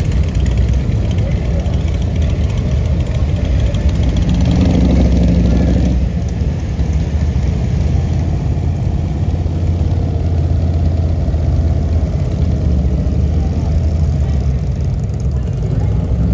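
Motorcycle engines running in the street, a steady low engine sound, with one bike louder for a couple of seconds about four and a half seconds in.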